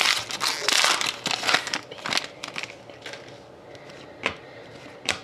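Trading-card pack wrapper crinkling and crumpling as it is opened and handled, thinning out after about two and a half seconds into a few sharp clicks of cards being handled.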